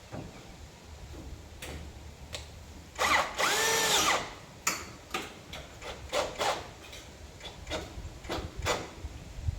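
Power drill run once for about a second, its whine rising and falling, followed by a series of sharp clicks and knocks.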